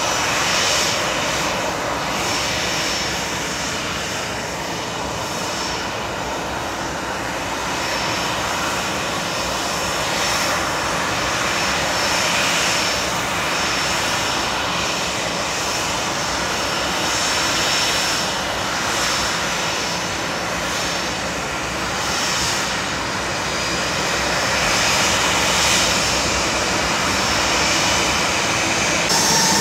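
The CFM56 jet engines of a Ryanair Boeing 737 running steadily at ground idle, a continuous jet hiss with a thin high whine on top.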